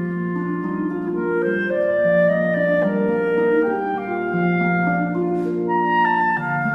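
Instrumental background music: a melody of sustained notes moving over long held low notes.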